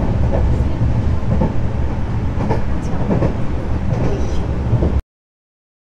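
Passenger train running, a steady low rumble with scattered short knocks, cutting off abruptly about five seconds in.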